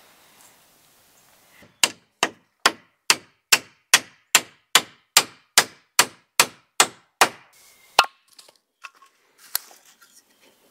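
A pack axe chopping wood in a fast, even rhythm of about fourteen strikes, a little over two a second, followed by two or three single strikes.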